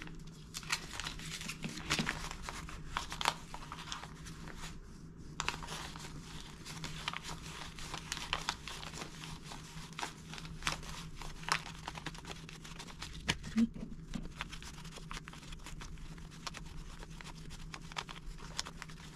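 US dollar bills being counted by hand: soft, crisp paper rustles and flicks, one after another at an irregular pace, as notes are peeled off a stack.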